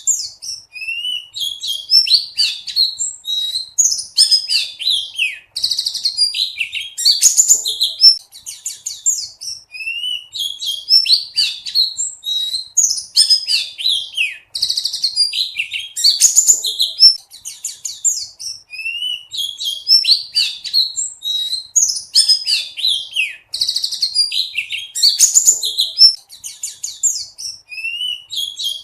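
Pleci buxtoni (a white-eye) singing a fast, high twittering song of chirps and sliding notes, the same run of phrases coming round again about every nine seconds.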